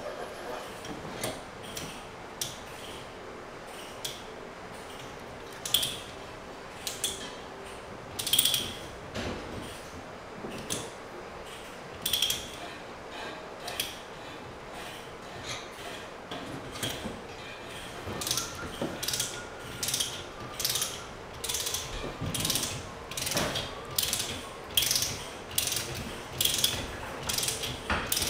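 Ratchet pipe threader being worked on a steel pipe held in a vise, its pawl clicking with each stroke of the handle. The clicks are spaced out at first and settle into a steady rhythm of a little over one a second in the last third.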